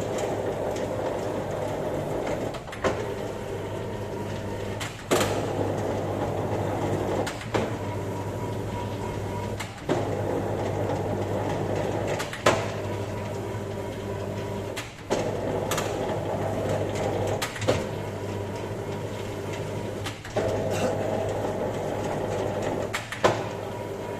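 Standing dough sheeter running, its motor humming steadily, with a short clack about every two and a half seconds as the sound shifts, typical of the conveyor belts reversing direction to pass the dough back and forth through the rollers.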